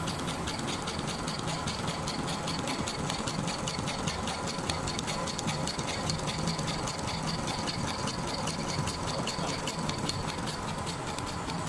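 Richpeace automatic sewing machine running steadily as it sews a zigzag stitch, the needle strokes making a rapid, even ticking over a steady mechanical hum.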